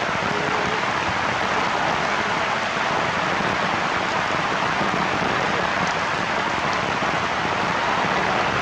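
Heavy rain falling, a steady, even hiss with no let-up.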